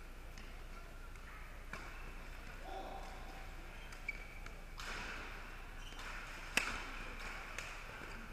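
Badminton rackets striking a shuttlecock during a doubles rally: several sharp smacks, the loudest about six and a half seconds in, over the steady background noise of a large sports hall.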